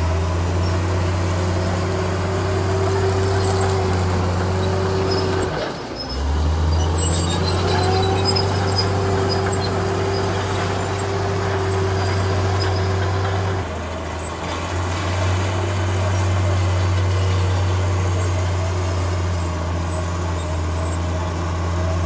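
Diesel engine of a heavy earthmoving machine running steadily. The engine note dips briefly about six seconds in and again for about a second around fourteen seconds in, then picks back up.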